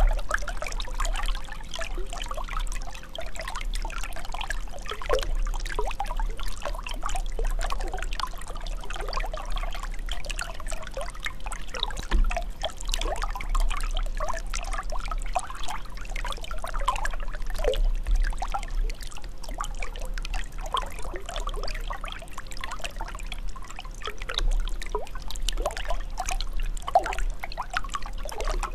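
Running water pouring and trickling steadily, with many small bubbling splashes.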